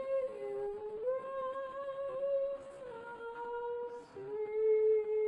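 A girl humming a slow tune in long held notes that step up and down in pitch.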